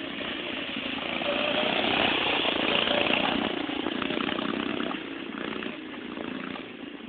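Small engine of a restored 1960s Rupp-style minibike running as it is ridden past, growing louder as it comes close and fading as it moves away.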